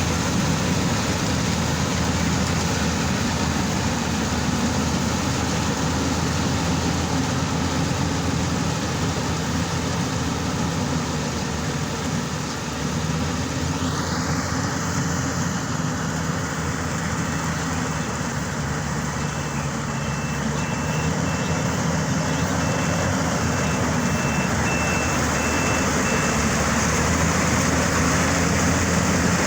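Yanmar YH700 full-feed combine harvester running steadily, its engine and threshing machinery making a loud, continuous mechanical noise. About halfway through the sound shifts, and a series of short, evenly spaced high warning beeps follows for several seconds.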